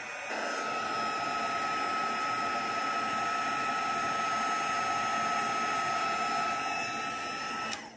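Embossing heat tool blowing steadily with a thin whine, melting white embossing powder on a stamped sentiment. It gets louder just after the start and switches off just before the end.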